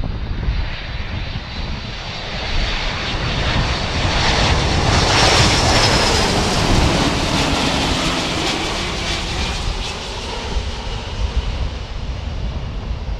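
Boeing C-17 Globemaster III on approach to land, its four turbofan jet engines growing louder to a peak about halfway through, with a high whine that drops in pitch as it goes past, then easing off. Gusty wind rumbles on the microphone throughout.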